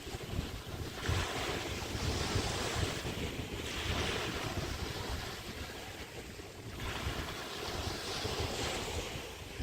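Small bay waves washing onto the beach, three swells of hiss that rise and fall, over a steady low rumble of wind on the microphone.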